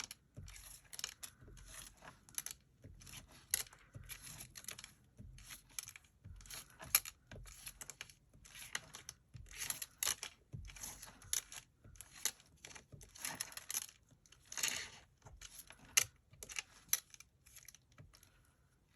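Marker tips pressed and dabbed onto paper to make ink dots: many irregular light taps and short scratchy rustles.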